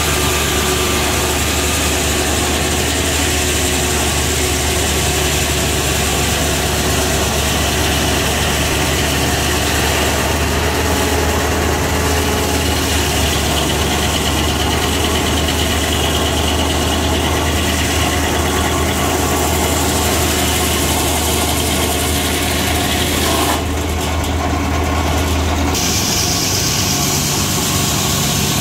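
Belt-driven circular sawmill running steadily, its large blade sawing ash logs into slabs with a constant low hum under a high hiss. Near the end the hiss dips for a couple of seconds and the hum then changes.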